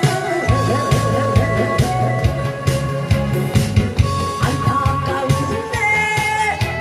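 Instrumental backing music for a song, with a steady drum beat under sustained held notes.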